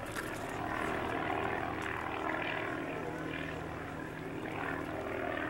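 Piston engine of a propeller aircraft running steadily on the ground, its propeller turning close by.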